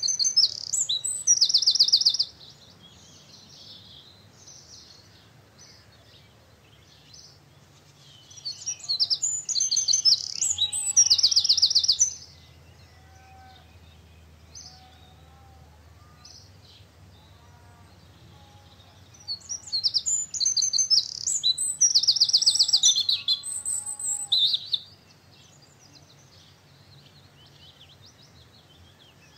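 Songbirds singing. Three loud bouts of bright, rapid trilled song, each a few seconds long, come several seconds apart, with softer, lower whistled notes in between.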